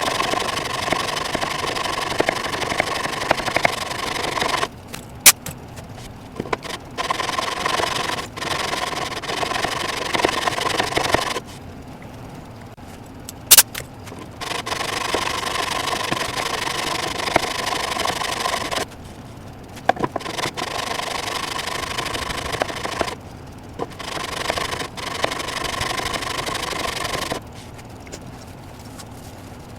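Walnut being sanded down at a broken cabinet corner, working away the pencil-marked high points to fit a replacement piece. The sanding runs in stretches of several seconds with short pauses, and two sharp clicks stand out.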